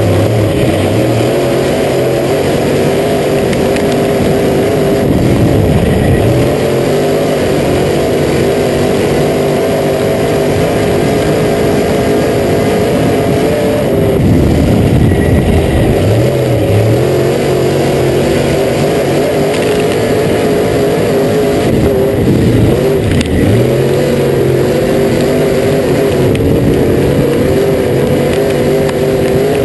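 Dirt-track race car's engine running hard, heard from inside the cockpit. Its pitch drops and climbs again several times through the lap as the throttle is lifted and reapplied.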